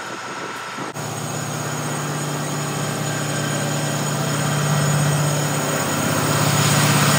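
A Class 66 diesel locomotive's two-stroke V12 engine hums steadily and grows louder as it propels a rake of empty cement tank wagons past, their wheels rolling on the track. The sound jumps in level about a second in.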